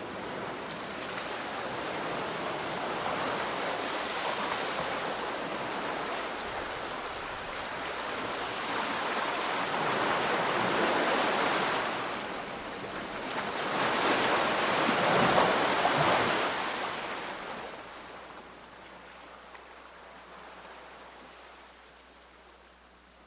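Flowing water rushing steadily. It swells twice, about ten and about fifteen seconds in, then fades away over the last few seconds.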